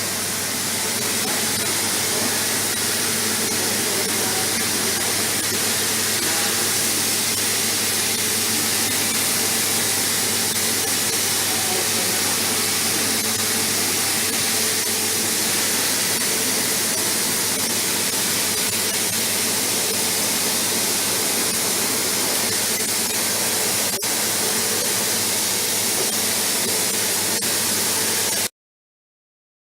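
CNC plasma cutting torch running steadily: an even hiss with a low steady hum under it, cutting off abruptly near the end.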